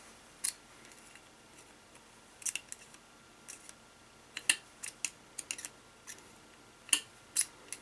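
Small metal parts of a Ramset nail gun clicking and tapping irregularly as they are handled while the piston is worked out during disassembly.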